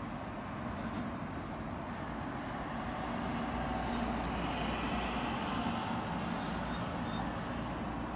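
Steady rumble and hiss of road traffic on an elevated city expressway, swelling a little about midway.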